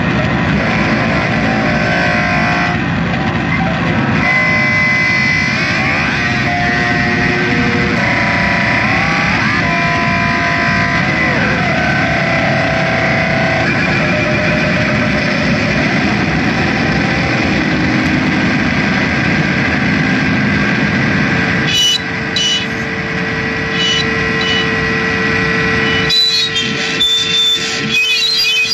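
Live harsh noise music played through guitar amplifiers: a loud, dense distorted wash with wavering, gliding pitched tones. Near the end it breaks into stuttering cut-outs with high whistling tones.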